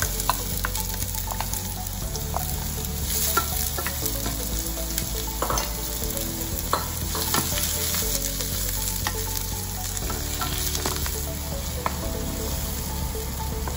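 Sliced onions and garlic sizzling in hot oil in a nonstick pan. A wooden spoon stirs them, with small scrapes and taps against the pan scattered throughout.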